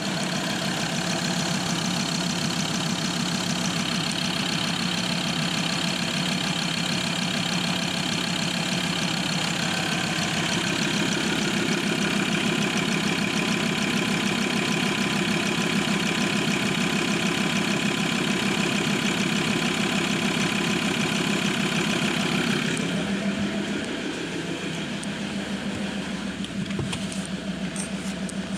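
Mazda BT-50's 3.2-litre five-cylinder turbo diesel idling steadily with the bonnet open. Near the end the sound becomes quieter and duller, heard from inside the cab.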